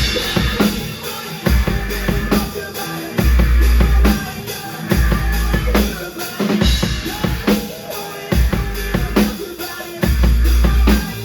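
Live rock band playing an instrumental stretch of a song: a drum kit drives it with kick and snare hits, under long, heavy low bass notes and guitar.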